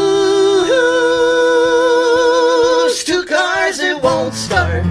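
Live acoustic country song: long held sung notes, then acoustic guitar strumming and upright bass come back in near the end.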